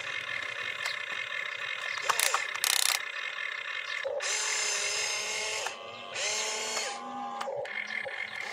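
Toy RC excavator's small electric motors and gears whining as its arm and bucket work, in two runs of about a second and a half, each rising in pitch at the start and dropping at the end. A few loud scraping crunches come between two and three seconds in.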